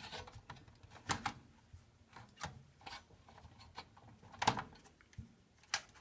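Plastic wiring-harness connectors being worked off a washing-machine timer by hand: scattered, irregular plastic clicks and rubs, the sharpest about a second in.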